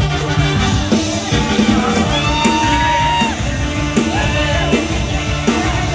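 Live Isan mor lam band music, a lively toei song, with a singer over a steady beat.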